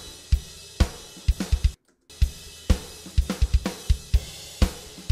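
Raw, unprocessed multitrack drum kit recording played back: kick, snare and cymbal hits with no other instruments. Playback stops for a moment a little under two seconds in and then picks up again.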